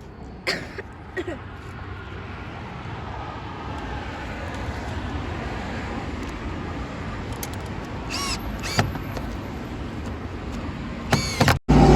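Road traffic: a car's engine and tyre noise growing steadily louder over several seconds as it approaches, with a couple of short knocks near the start. The sound cuts off abruptly near the end.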